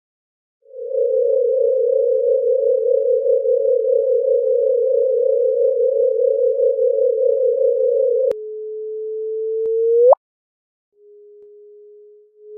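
Synthetic electronic tones. A warbling, beating tone near 500 Hz runs for about seven seconds, then switches to a single pure tone that swells louder and ends in a quick upward sweep. After a short gap comes a quieter steady tone, and near the end another brief rising sweep.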